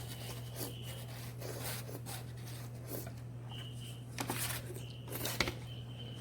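Soft rubbing and scraping sounds of someone eating noodles and handling the bowl and utensils, with one sharp click about five seconds in. A steady low electrical hum runs underneath.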